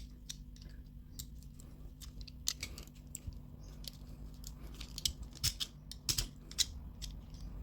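Faint scattered clicks and scratches from prying a jammed plastic window piece out of a diecast toy car's metal body, over a steady low hum.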